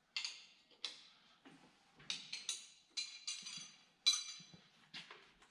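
Metal hand tools clinking and striking against metal, about ten sharp irregular clanks, several with a short ringing tone. The loudest clank comes about four seconds in.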